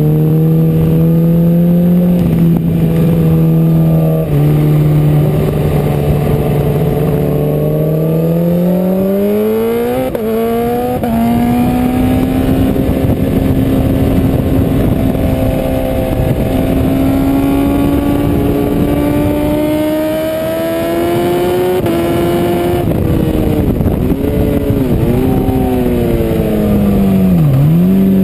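BMW S1000RR superbike's inline-four engine racing at high revs, heard on board. The pitch climbs and drops through gear changes, holds high and rises slowly for a long stretch at full throttle, then dips sharply and recovers several times in the last few seconds.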